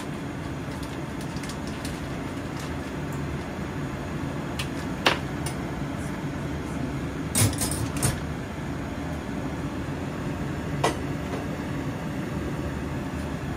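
Soy sauce, rock sugar and ginger simmering in a wok on an induction hob, over a steady low rumble. A few sharp pops or clicks come through, the loudest a cluster about seven to eight seconds in.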